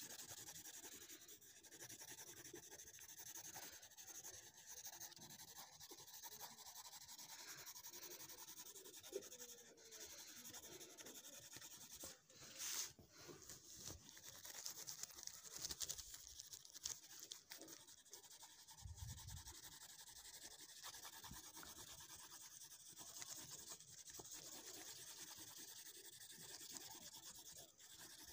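Colored pencil shading on paper: a faint, continuous scratchy rubbing as the pencil is worked back and forth, with a brief tap near the middle.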